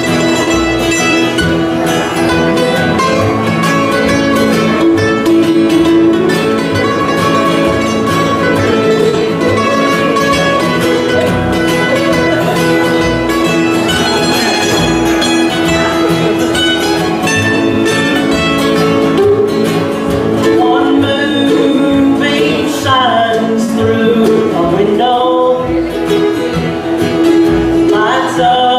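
Acoustic bluegrass band playing: picked guitar and other string instruments over a steady upright-bass pulse, mostly an instrumental passage, with singing coming back in near the end.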